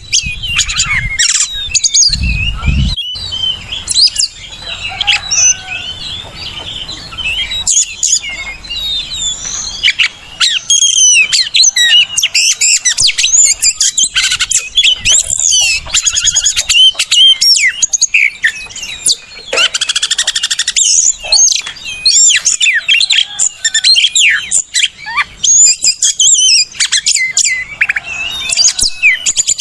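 Oriental magpie-robin (kacer) singing a loud, fast, continuous song of varied whistles, chirps and trills. It is the kind of song recording used as a lure to get caged kacer singing and to teach them the song.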